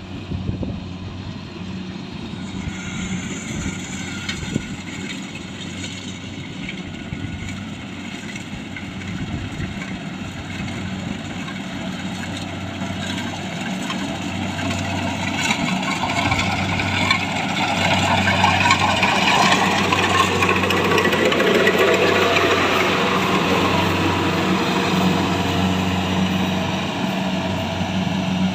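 Diesel engine of a rice harvesting machine running steadily with a low hum and mechanical clatter, growing louder a little past the middle.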